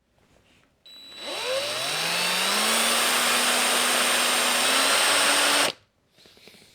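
Small handheld electric power tool spinning up, its motor whine rising in pitch, running steadily for about four seconds, then switched off abruptly.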